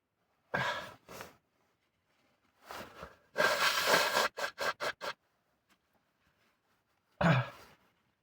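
A man sneezing hard once, about three and a half seconds in, with sharp breaths drawn in before it and five quick short breaths right after. There is one more short breath near the end.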